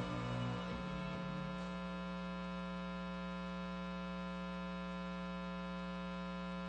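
The last of the music dies away in the first second or so, leaving a steady electrical mains hum with a buzzy string of overtones that runs on unchanged.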